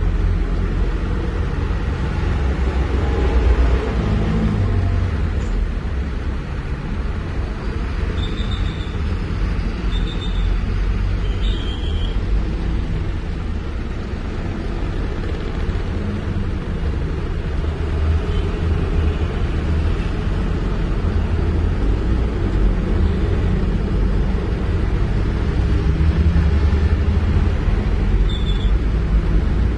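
Heavy diesel engine running with a steady low rumble. A few short high chirps or squeaks sound over it near the middle and again near the end.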